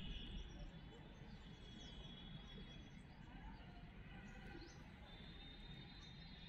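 Faint outdoor ambience: scattered short bird chirps over a low rumble, with a thin steady high tone that fades out midway and comes back near the end.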